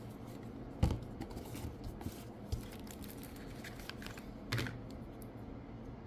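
Light handling of a cardboard card-game deck box and its contents: soft taps, knocks and rubs, the clearest about a second in and again about four and a half seconds in.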